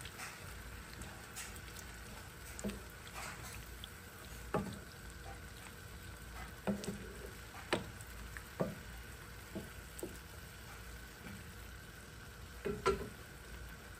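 Pork pieces simmering and sizzling gently in soy sauce and vinegar in a frying pan, under a wooden spatula that stirs them. Soft scrapes and irregular knocks of the spatula against the pan come every second or two, the loudest near the end.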